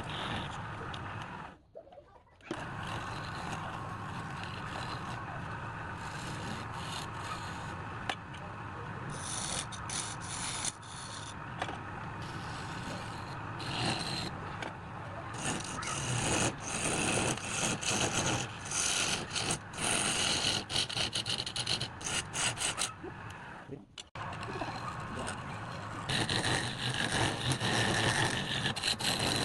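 Tools cutting and scraping wood: a dense, continuous scraping noise that breaks off briefly twice.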